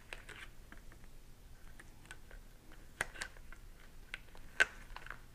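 Faint scattered clicks and light ticks of a thin plastic Pinlock insert and face shield being flexed and handled with gloved hands, the sharpest click a little over four and a half seconds in.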